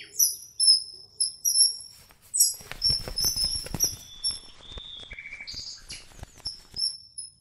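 Common kingfishers calling: a string of short, very high-pitched, shrill whistled chirps repeated throughout, with a patter of soft clicks through the middle.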